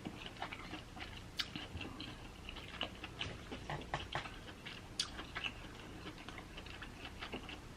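Close-miked eating sounds: chewing and biting seafood, with scattered small wet clicks and smacks.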